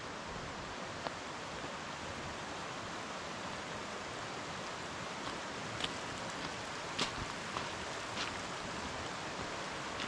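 Steady rush of a mountain stream, with a few footsteps on gravel in the second half.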